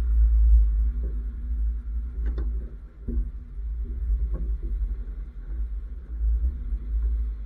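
Low, steady rumble of a Nissan X-Trail T30 driving slowly over a rough dirt track, picked up by a camera mounted on its roof, with a few short knocks as the car goes over bumps about two, three and four seconds in.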